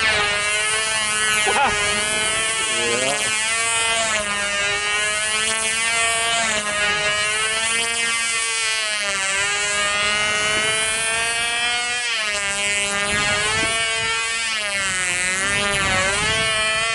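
Small fuel-burning engine of a control-line model aircraft running at full speed in flight. It holds a steady buzzing note whose pitch rises and falls every few seconds as the model circles.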